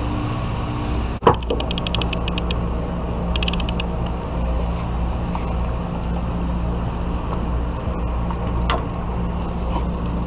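Conventional fishing reel clicking in two short rapid runs, a second or so apart, over the steady low drone of the boat. A sharp knock comes about a second in.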